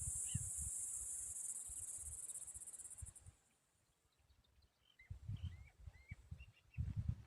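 A loud, steady, high-pitched insect trill that turns pulsing and stops about three seconds in. It is followed by a few short, soft, rising bird chirps and some low, muffled thumps near the end.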